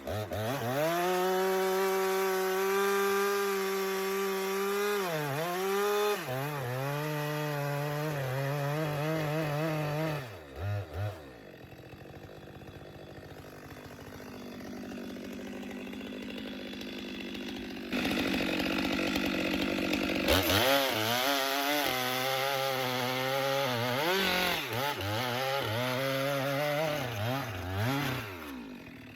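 Stihl MS 462 two-stroke chainsaw cutting big logs into rounds. It revs up and holds at full throttle with its pitch sagging and recovering, drops back about ten seconds in, then is revved hard again from about twenty seconds in, the pitch dipping repeatedly until it eases off near the end.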